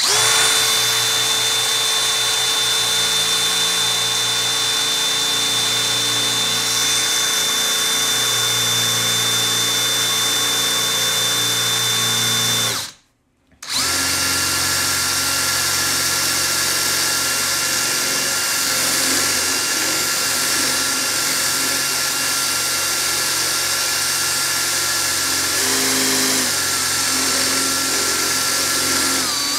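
Electric hand drill running steadily as its bit bores into the metal back plate of a combination padlock clamped in a vise. The drill stops for about a second about halfway through, then starts again and runs on.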